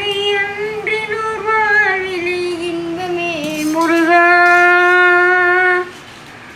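A boy singing a Tamil devotional song without clear words, drawing out a winding phrase with pitch bends. About four seconds in he holds one steady note for nearly two seconds, then stops shortly before the end.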